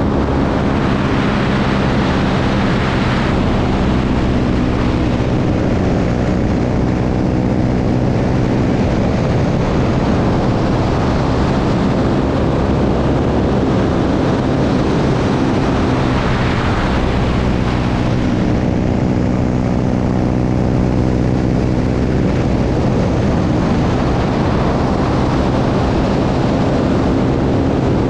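Light propeller airplane's engine droning steadily in flight, with loud rushing wind noise over the microphone. The engine note blurs for a few seconds mid-way, then returns clearly.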